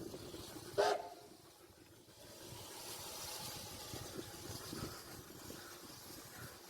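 Steady hiss of steam from a steam locomotive, setting in about two seconds in, after one short, loud pitched sound about a second in.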